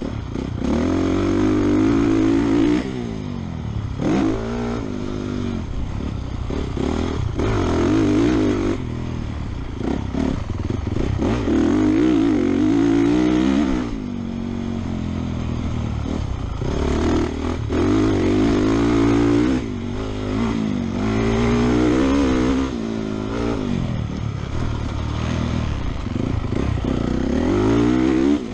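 Honda motocross bike engine being ridden hard, revving up and dropping back again and again, with the sound cutting off briefly several times as the throttle is chopped.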